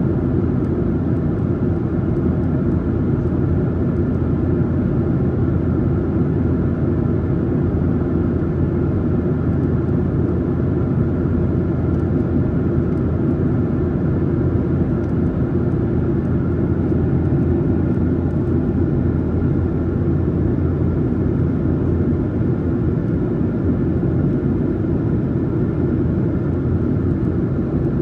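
Steady cabin drone of a Boeing 737-900ER in flight, heard from a main-cabin seat: a deep, even rumble of CFM56-7B engine and airflow noise that does not change.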